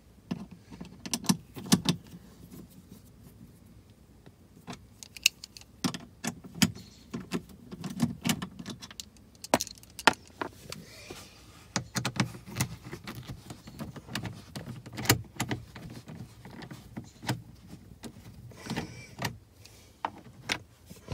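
A screwdriver with a 9/32 socket attachment backing out the screws of a plastic lower dash panel: scattered sharp metallic clicks and knocks, with low rustling and bumping from handling the tool and panel.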